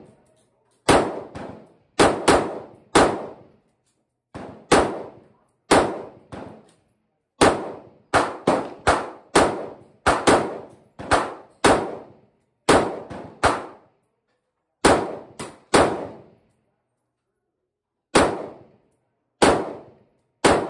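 Omni Maxx AR-15 pistol firing a long string of loud semi-automatic shots, about twenty, often two or three a second. Each is a sharp crack with a short ringing tail, and there is a pause of about two seconds before the last few shots.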